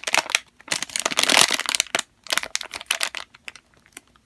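Clear plastic packaging crinkling as it is handled and turned over, in quick irregular crackles with a denser rustle about a second in.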